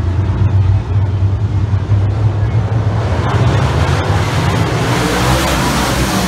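Dirt-track race cars' engines running at racing speed, a loud steady rumble. From about three seconds in a rushing noise builds as the cars come by close to the fence.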